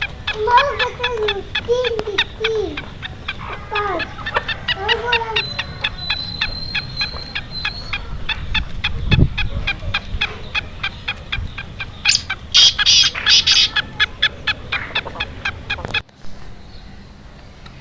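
Caged birds calling in short, bending nasal notes for the first few seconds, over a fast, even ticking. A burst of harsh hissing comes about twelve seconds in, and the sound cuts off abruptly near sixteen seconds.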